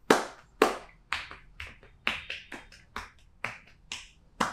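Hands striking a person's back in a rhythmic series of sharp slaps during a percussive back massage, about two to three a second.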